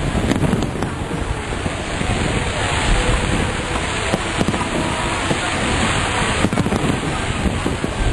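Aerial fireworks going off in a continuous dense crackle and rumble, with a few sharp bangs standing out.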